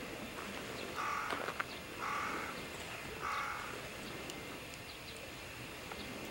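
A crow cawing three times, about a second apart, each caw short and harsh.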